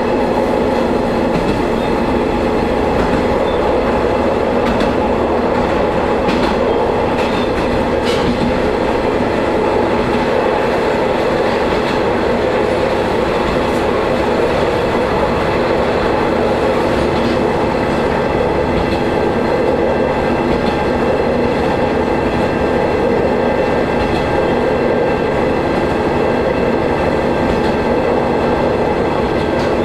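Diesel railcar running steadily along the line, its engine hum mixed with wheel and rail noise, with a few short clicks of rail joints a few seconds in.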